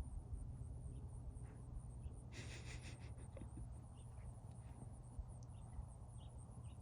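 A husky sniffing about, with short hissy breaths through the nose, the clearest about two and a half seconds in, over a steady low rumble.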